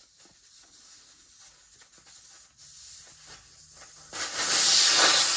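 Faint scattered clicks of handling, then a loud, steady hiss that starts about four seconds in.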